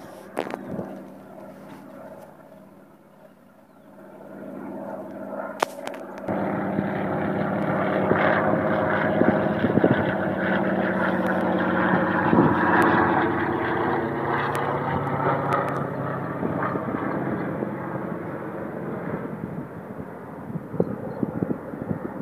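Single-engine propeller firefighting air tanker flying low overhead. Its engine drone builds from about four seconds in, is loudest through the middle, then slowly fades.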